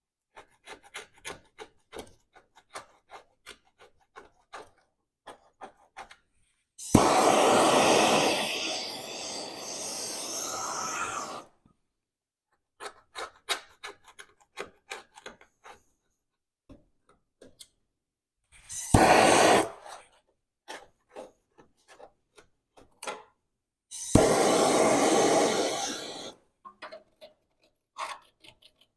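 Scraper working rubberized undercoating off a steel frame rail in many short, scratchy strokes. Three loud hissing bursts break in abruptly; the first lasts about four seconds, the second is brief, and the third lasts about two seconds.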